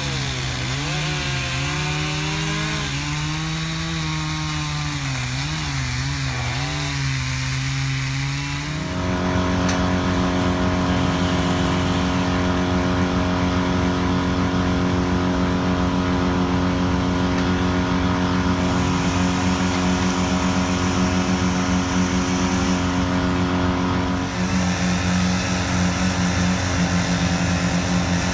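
A chainsaw engine running at high speed, its pitch dipping and recovering as it cuts for about the first nine seconds. Then a louder, steadier engine note holds, shifting slightly now and then.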